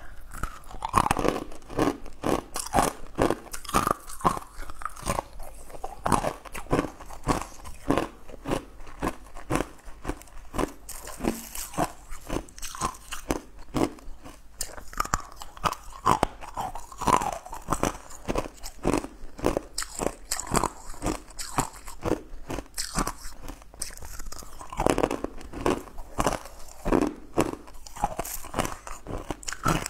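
Biting and chewing sugar-crusted blue jelly candy cubes: a dense, uneven run of crisp crunches mixed with chewing, picked up close by a clip-on microphone.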